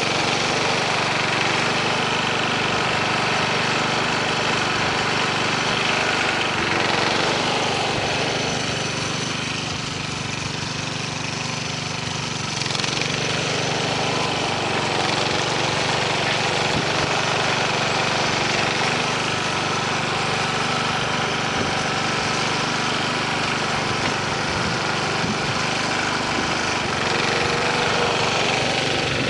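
1970 Sears Suburban 12 garden tractor's engine running steadily while the front loader works a snow pile, easing off a little about ten seconds in.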